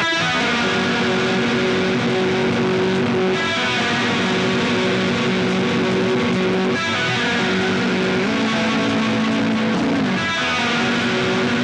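Post-punk band playing live: electric guitar, bass and drums in a repeating instrumental phrase that starts over about every three and a half seconds, on a poor-quality audience tape of the concert.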